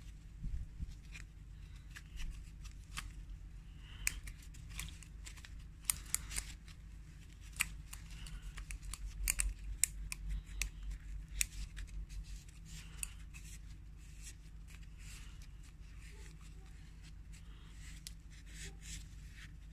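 Hand work on a plastic cartridge oil-filter housing while a new rubber seal and filter element are fitted: scattered sharp clicks, snips and rustles, coming faster for a few seconds in the middle.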